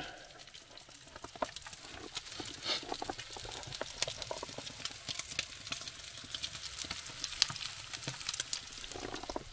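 Bacon frying in a skillet, sizzling with dense, irregular crackles and pops that thicken about two seconds in.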